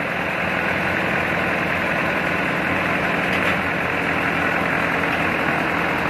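Band sawmill running steadily with a constant machine drone, as a very large log is pushed through the blade on the carriage.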